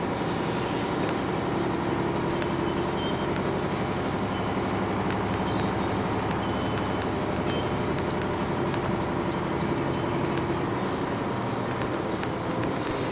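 Isuzu dump truck's diesel engine running steadily at low speed, heard from inside the cab while the truck rolls over an unpaved road bed.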